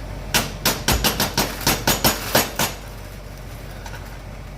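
A spoon knocking against the side of a cooking pot about ten times in quick succession, roughly four knocks a second, while sticky marshmallow-and-cereal mixture is stirred hard. The knocking stops a little past halfway through.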